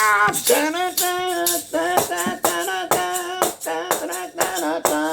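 Music: a maraca-style shaker keeps a steady beat under a pitched melody line that wavers and moves from note to note, with no words sung.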